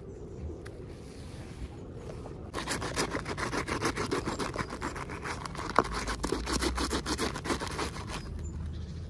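Rapid rustling and scraping from about two and a half seconds in for some five seconds, with one sharper click in the middle, as packaging is handled.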